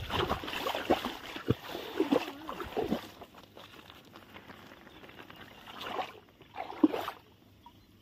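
Shallow water sloshing and splashing, with dry reed stalks rustling and snapping, as someone wades through a reed bed. It is busy for the first three seconds, then quietens, with two short splashy sounds near the end.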